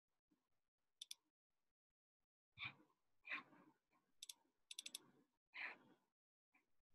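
Near silence broken by faint clicks from a computer being worked: a pair about a second in, then a quick run of several more around four to five seconds, with a few soft, dull sounds between them.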